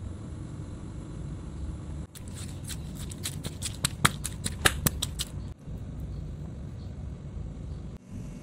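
Stone pestle knocking in a stone mortar while pounding a chili and shallot spice paste: a quick run of sharp clacks starting about two seconds in and lasting about three seconds, over a low steady hum.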